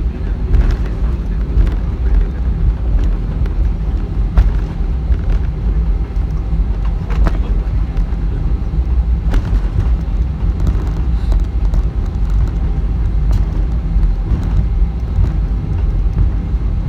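Airbus A320 cabin noise: a steady, loud low rumble of the engines and airflow, with scattered clicks and rattles.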